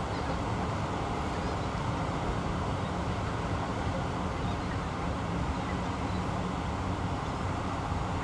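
Steady low rumble of distant engine traffic, even throughout with nothing sudden standing out.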